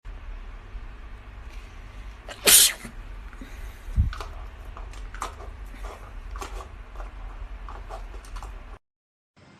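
A single loud sneeze about two and a half seconds in, over a low rumble of microphone handling noise, followed about a second and a half later by a dull thump.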